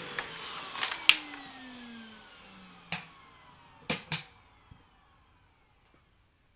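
Vacuum cleaner motor spinning down after being switched off, its hum falling steadily in pitch and fading away over about four seconds. Several sharp clicks and knocks of handling come along the way, two close together near the middle.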